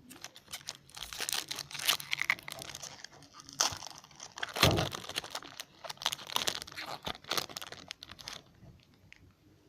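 Hockey card pack wrapper being torn open and crinkled by hand: a run of irregular crackling and rustling that stops about a second before the end.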